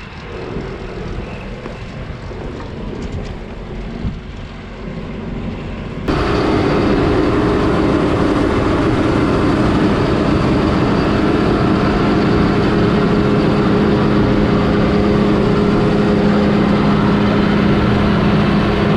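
Heavy farm machinery engine running steadily. It is quieter for about the first six seconds, then jumps abruptly to a louder, even drone with a steady hum.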